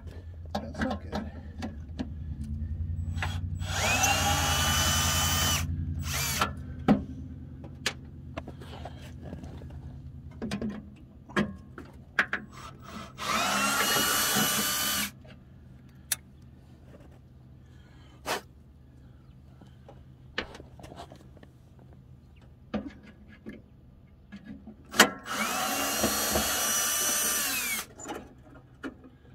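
Cordless drill running three times, about two seconds each, turning screws at a truck's headlight. Each run rises in pitch as the motor spins up, then holds steady. Short clicks and knocks sound between the runs.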